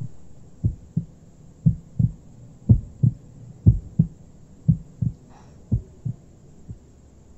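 Heartbeat sound effect: steady paired low thumps in a lub-dub rhythm, about one beat a second, weakening near the end.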